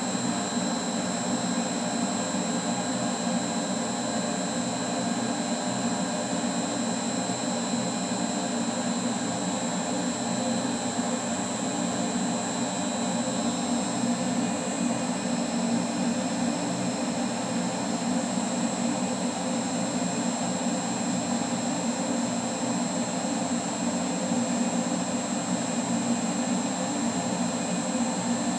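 Variable-speed air flow bench blower running steadily, drawing about 152 CFM through a stock Kawasaki Z1000 paper air filter at a set pressure of 1.5 inches of water. It makes a constant rush of air with a high, steady whine over it.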